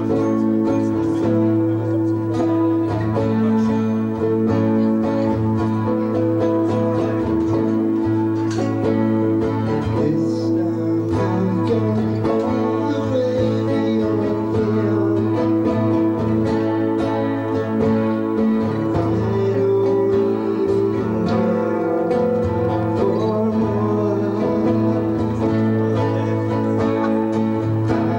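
Live acoustic band music: guitars strummed and picked over steady held low notes, with a voice singing into a microphone.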